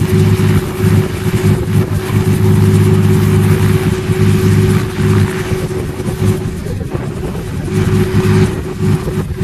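Robinson R44 Clipper II helicopter running at ground idle, its six-cylinder piston engine humming steadily as the main rotor turns slowly, with wind noise on the microphone.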